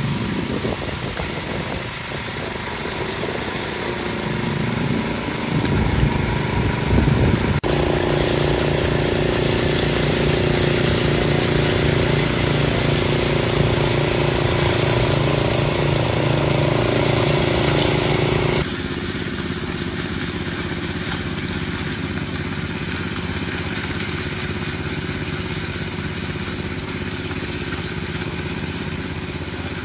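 Walk-behind concrete power trowel's small gasoline engine running steadily as its blades finish a fresh concrete slab. The sound changes abruptly twice, about a third of the way in and again past the middle, getting quieter after the second change.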